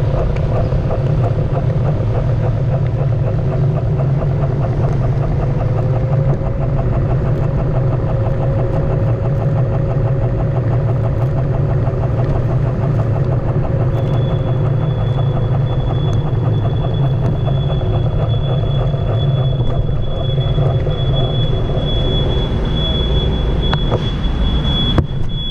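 Onewheel electric skateboard rolling over city pavement: a steady low rumble from its single hub-motor wheel on the road, with a faint tone that rises and falls slowly in pitch. A thin, high steady whine joins about halfway through and carries on to the end.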